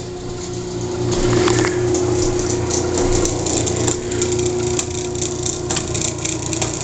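Craftsman half-horsepower garage door opener running through a cycle from the wall button: a steady motor hum with a pulsing low drone and light rattling clicks from the drive.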